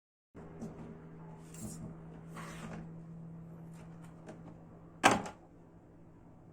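Plastic bottom cover of a laptop being lifted off and handled: a couple of scraping rustles and light clicks over a low steady hum, then one sharp plastic clack about five seconds in.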